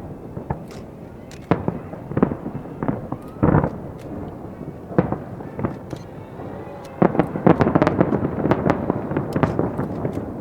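Aerial fireworks shells bursting, with separate booms at irregular intervals, then a rapid barrage of overlapping bursts and crackle from about seven seconds in.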